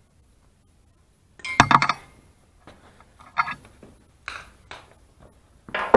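Metal parts and tools clinking and knocking as they are handled during work on a small engine: a cluster of sharp clinks about a second and a half in, then several lighter knocks.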